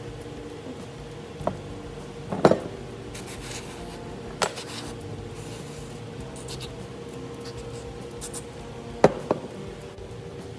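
Outboard carburetor parts being handled on a workbench: scattered knocks and clicks as hard parts are picked up and set down. The loudest come a little after two seconds and as a close pair just after nine seconds, over a steady low hum.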